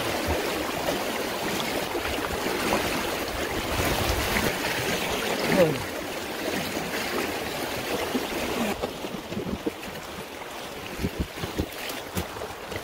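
River water rushing and splashing against a canoe as it tips and capsizes, with a louder splash about midway. The sound turns duller about two-thirds of the way through.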